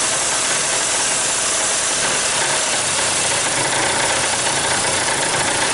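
Honda CR-V four-cylinder engine running roughly, trying to idle but not holding it, a sign of the crankshaft and camshaft being out of phase (code P0341), which the mechanic takes for a timing problem.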